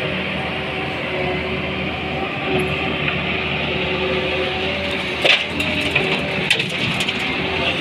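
Doosan DX140W wheeled excavator's diesel engine running steadily under digging load. A burst of sharp knocks and clatter sounds about five seconds in as the bucket drops soil and stones into a steel dump truck bed.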